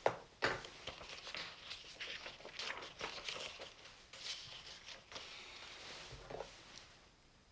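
Faint scratching and small taps of writing on paper, in irregular strokes with a steadier run of scratching about five seconds in.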